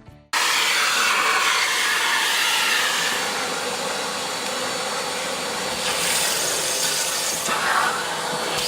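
STIHL SE 122 E wet-and-dry vacuum cleaner running under suction, a loud, steady rushing hiss with a faint steady hum underneath. It cuts in abruptly about a third of a second in, and the rush brightens around six seconds in and again a little later.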